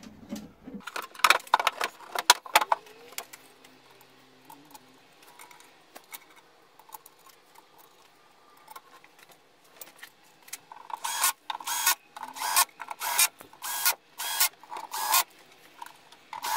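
Steel lid of an inverter enclosure set down onto the box with a short clatter of metal knocks. Later comes a run of about seven sharp, evenly spaced metallic clicks, about one and a half a second.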